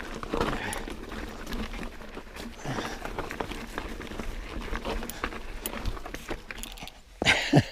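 YT Jeffsy mountain bike climbing over loose gravel and rock: many scattered clicks and knocks from tyres, pedals and drivetrain on the rocks, with the rider's effortful breathing, and a short vocal sound near the end.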